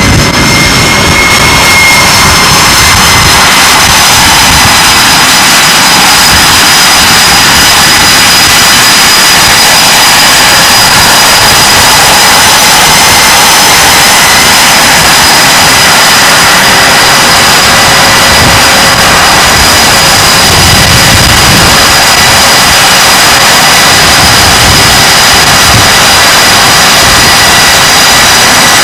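F/A-18 jet engines running on a carrier flight deck: a loud, steady jet roar with high whining tones, one of which rises briefly about a second in.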